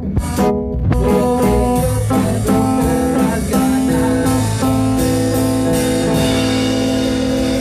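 Live band playing: guitar and bass, then a few drum hits and the full band with cymbals coming in about a second in, with long held notes over the groove.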